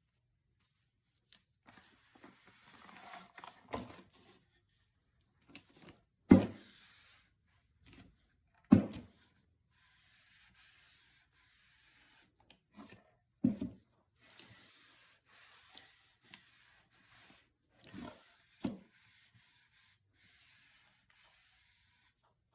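Mineral oil being rubbed into a wooden cutting board, in soft stretches of rubbing, broken by several dull knocks; the loudest come about six and nine seconds in.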